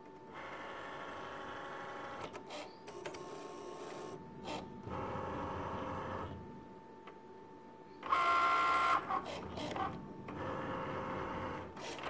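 Cricut Maker cutting machine running its carriage and mat-feed motors in starts and stops as it cuts out a printed image from cardstock, with a louder, higher-pitched whine about eight seconds in.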